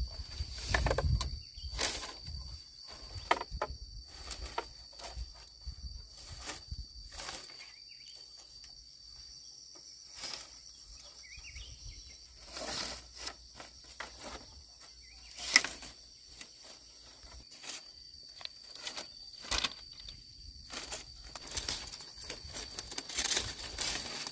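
Dry bamboo poles knocking and clattering at irregular moments as a bamboo fence is pulled apart and the poles are piled up, with rustling steps in grass. A steady high insect drone sits underneath, and a single sharp knock a little past halfway is the loudest.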